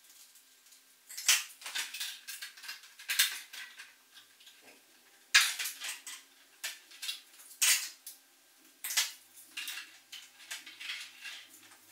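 Thin-walled 3D-printed plastic wing parts being handled and pressed together by hand: a series of irregular plastic clicks, scrapes and crackles, several sharper ones standing out.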